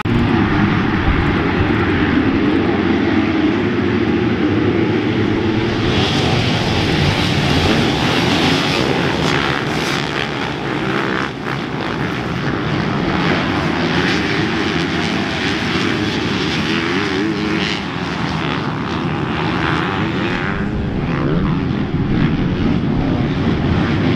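A full field of motocross bikes racing off the start as one pack, their engines at hard throttle blending into a loud, dense drone that comes in suddenly at the start. Individual bikes swell louder as they pass, for a few seconds after about six seconds in and again near the end.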